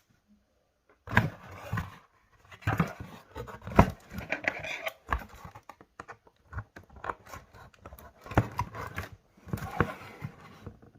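Packaging being handled: paper and cardboard rustling and scraping, with sharp knocks and clicks from things being moved and set down. It starts about a second in.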